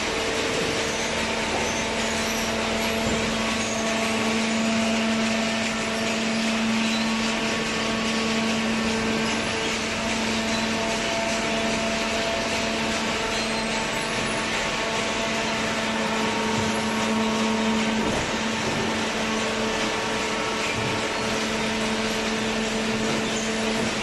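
Hydraulic cardboard baler running: a steady machine hum with a constant droning tone, from its hydraulic power unit.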